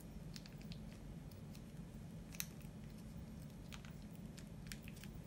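Plastic ketchup sachet being squeezed, giving a few faint crinkles and clicks, one sharper about halfway through, over a low steady hum.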